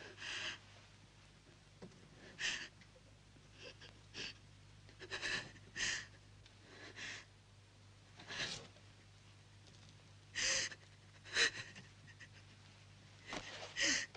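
A woman sobbing quietly in short, gasping breaths at uneven intervals, over a faint steady low hum.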